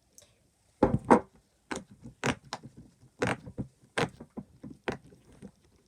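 Silicone pop-it fidget toy being pressed bubble by bubble: a string of sharp, irregular pops, about two or three a second.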